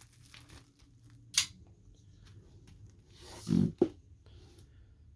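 The wrapping of a new vinyl LP being cut open and handled: scattered small snips and rustles, a sharp click about a second and a half in, and a dull thump with a click near the end.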